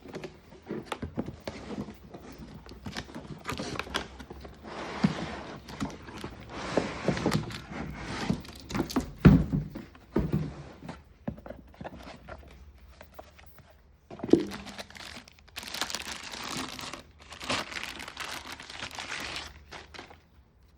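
A robot vacuum's packaging being unboxed by hand: plastic wrap and packing crinkling and rustling, with many clicks and knocks and a few heavier thumps, the strongest about nine seconds in.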